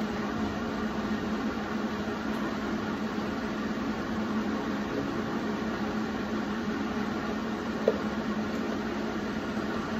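Steady mechanical hum of welding-shop machinery, with a constant low drone and no welding arc, and a single short tick about eight seconds in.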